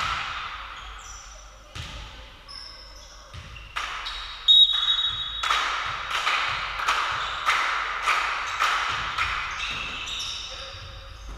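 Volleyball being struck and bouncing off the floor, a run of sharp echoing hits about two a second, with a brief high whistle about four and a half seconds in.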